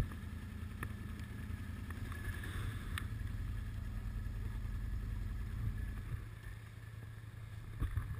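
ATV engines idling with a steady low rumble, with some wind on the microphone.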